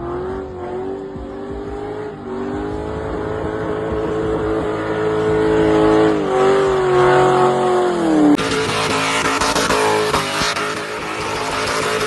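Car engine held at high revs during a burnout, with tyre squeal; the pitch sags and drops briefly, then about two-thirds of the way through the sound cuts abruptly to a harsher, noisier roar of spinning tyres and engine.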